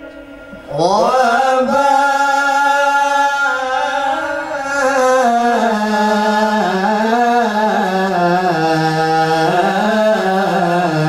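A male voice singing an unaccompanied Islamic sholawat (devotional praise of the Prophet), drawing out long melismatic notes that waver and slowly step down in pitch. It begins about a second in, after a brief lull.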